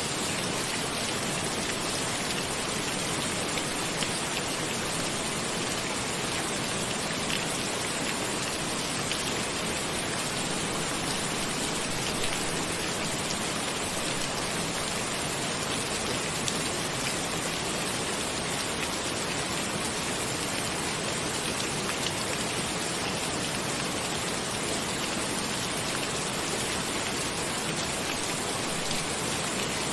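Steady rain falling, an even hiss with a few slightly louder drops here and there.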